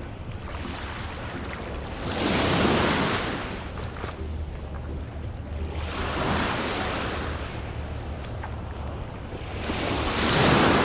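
Small waves breaking and washing up on a sandy shore: three washes, each swelling and fading, about four seconds apart.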